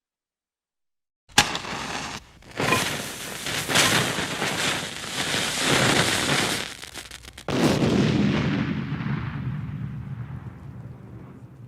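Battle sound effect: after a second of silence, a sudden burst of dense, crackling gunfire lasting about six seconds, then a loud blast whose deep rumble slowly fades away.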